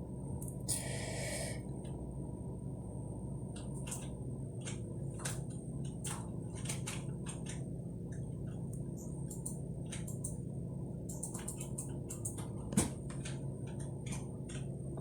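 Faint scattered clicks and taps of small objects being handled, over a steady low electrical hum.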